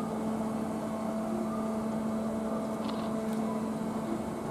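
Amusement-park airplane tower ride turning: a steady mechanical hum holding a few fixed tones.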